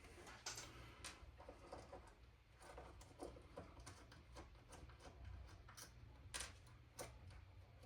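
Near silence with a few faint, scattered clicks and taps, the clearest about six and a half seconds in: small metal and plastic parts being handled during an airsoft gearbox teardown.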